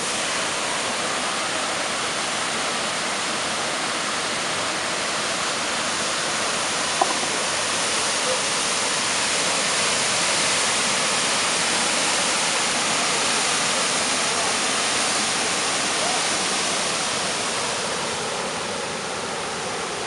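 The Jägala waterfall, a wide curtain of water pouring over its ledge and rushing steadily, heard close by. It grows a little louder midway and eases slightly near the end.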